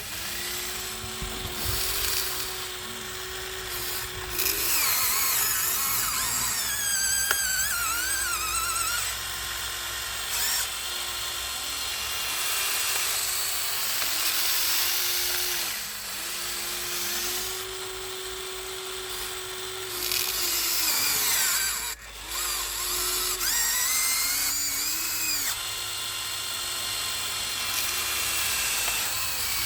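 Small electric gear motors of a Huina 1593 RC excavator whining as they drive the boom, arm, bucket and slewing, starting and stopping every second or two, with high whines that rise and fall in pitch.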